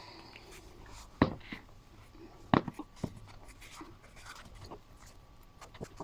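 Putting on shoes: a few sharp knocks, the loudest about a second in and again about halfway, with light scraping and rustling between.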